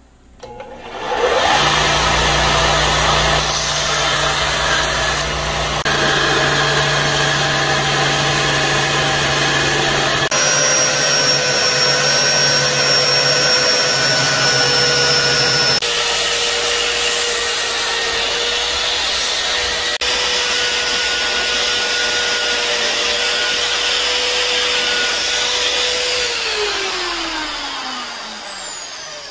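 Electric belt grinder and then a motor-driven abrasive wheel running steadily while a wooden knife handle is sanded on them, starting about a second in and shifting abruptly a few times. Near the end the motor spins down, its whine falling in pitch.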